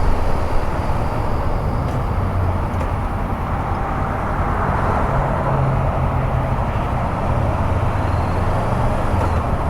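2014 Honda CB500X's parallel-twin engine running steadily while under way, over a steady rush of wind and road noise.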